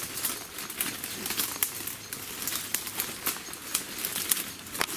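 Footsteps crunching over broken debris: a rapid, irregular crackle of sharp clicks and crunches.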